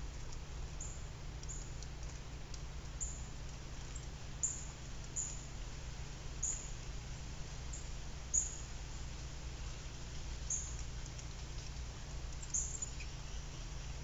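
Small songbirds giving short, very high, thin chirps, about a dozen at irregular intervals, over a steady low hum.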